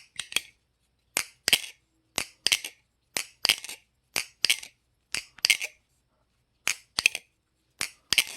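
Bgroove Replicant balisong (butterfly knife) being flipped: its handles clack against each other and the pins in sharp double clicks, about one pair a second.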